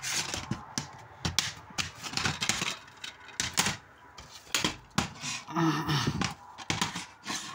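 Plastic DVD cases and a disc being handled: irregular clicks and clatter of hard plastic.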